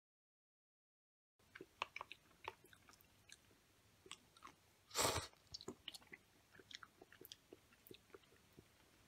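A person eating udon noodles: faint chewing and small mouth sounds start about a second and a half in, with one louder, noisier sound about five seconds in.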